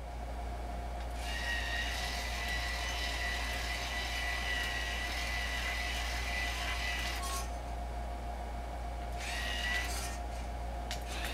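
Small electric servo motors of a motorized x-y easel whining as they drive the easel. The whine starts about a second in and runs about six seconds, then comes again briefly near the end, over a steady low hum.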